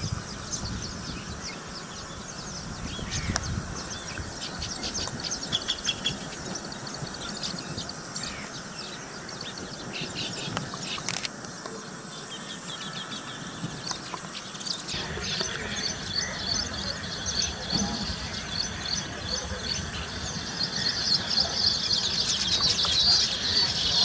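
Baya weavers chattering, with many quick high chirps overlapping. The calls grow denser and louder over the last few seconds.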